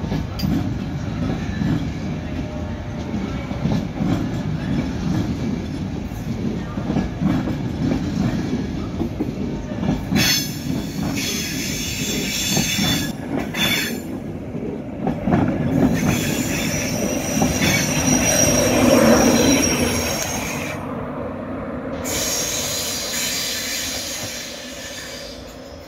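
LNER InterCity 225 train of Mark 4 coaches running along the platform with a steady rumble of wheels on rails. From about the middle on, high-pitched wheel squeal comes and goes, loudest a little before the end, then the sound fades as the train clears.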